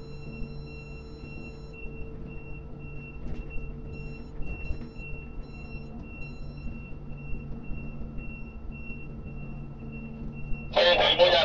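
Steady drone of ship and crane machinery under a high-pitched warning beeper pulsing evenly, about two or three beeps a second. A loud burst of voice cuts in near the end.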